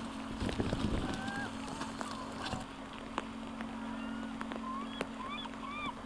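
Gulls calling: many short, high calls that bend up and down in pitch, coming thicker near the end, over the hiss of flowing river water and a steady low hum.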